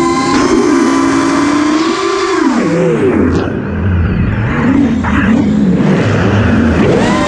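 FPV quad's brushless motors spinning Azure Power 5150 props on a 5S battery, whining at high throttle. About two and a half seconds in the pitch drops steeply as the throttle is cut, wavers low with a low rumble for a few seconds, then climbs again near the end as the throttle is punched back up.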